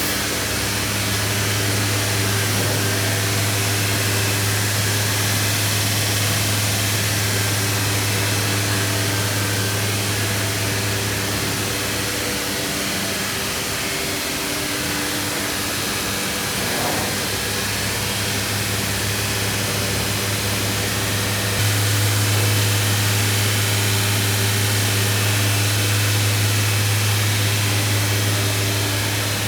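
Anderson Stratos Pro CNC router running a program: a steady machine hum with a strong low drone over an even hiss. The low drone drops away about twelve seconds in and comes back louder about twenty-two seconds in.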